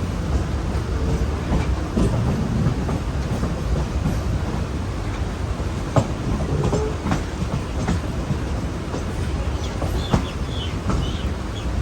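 Mumbai suburban electric local train running on the track, a steady rumble with wheels clacking over the rails. Sharp clicks come about six and ten seconds in, and a brief high wheel squeal near the end.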